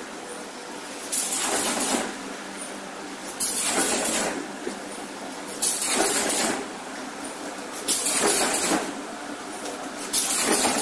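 Cardboard partition assembly machine running in its work cycle: a steady machine hum, broken by a loud, hissing noisy burst about every two seconds, five times in all.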